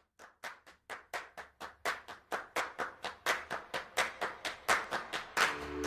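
Rhythmic claps, about four or five a second, growing steadily louder as a music track builds. Shortly before the end, held musical tones come in.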